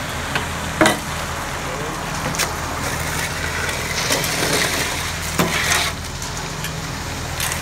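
Ready-mix concrete truck's engine running steadily while wet concrete slides down the steel chute with a rough hiss, which swells about halfway through. A few sharp knocks are heard, from tools striking the chute.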